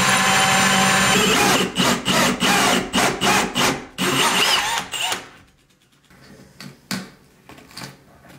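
A cordless drill with a hole saw cuts into a wooden countertop. It runs steadily at first, then in short stop-start pulses about three times a second, and stops about five seconds in. Faint scrapes and a sharp knock follow as a screwdriver works at the cut wooden plug.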